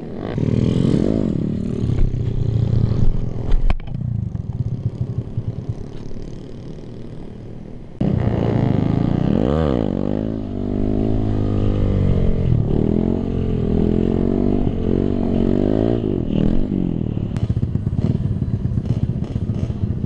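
Kawasaki KLX/D-Tracker single-cylinder four-stroke engine, heard from the rider's helmet, revving up and down over and over as the throttle is worked to hold wheelies. The sound jumps abruptly about eight seconds in, after which the rises and falls in pitch come quicker and stronger.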